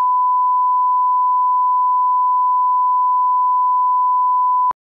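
Broadcast 1 kHz reference test tone played with colour bars: one steady, pure, loud beep that cuts off suddenly near the end.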